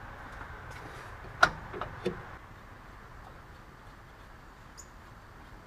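A few sharp metallic clicks as bolts and hand tools are handled at an engine's accessory bracket: three in quick succession, the first and loudest about a second and a half in, then only a faint steady hiss.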